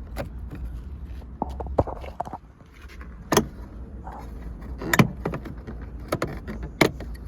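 A plastic trim cover on a Toyota RAV4 door panel being pried off with a plastic trim tool, its clips letting go in a few sharp clicks and snaps over a steady low rumble.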